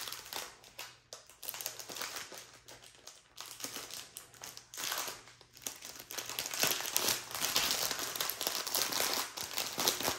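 Crinkling of a clear plastic packet of diamond painting drill bags being handled, an irregular run of crackles that gets denser and louder in the second half.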